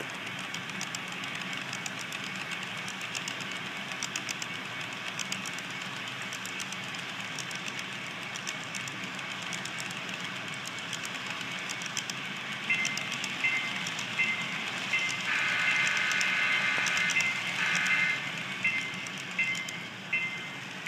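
Model freight cars rolling past on the track, a steady rolling hiss with rapid wheel clicking. About two thirds of the way in, a model diesel's sound system starts ringing a bell in a steady beat, and a horn sounds one long blast then a short one.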